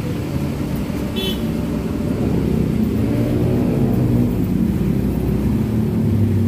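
A motor vehicle engine running steadily, its pitch rising around three seconds in as it revs.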